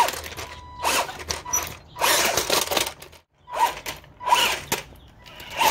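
BWINE Q111 RC tank's electric drive motors and gearboxes whining in short bursts of throttle, the pitch rising and falling with each burst, while its tracks rattle and scrabble against the logs and asphalt. There are about six bursts, with a brief pause a little after the middle.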